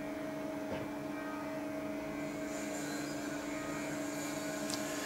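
Steady mechanical hum, two even tones over a faint hiss, running unchanged with no speech.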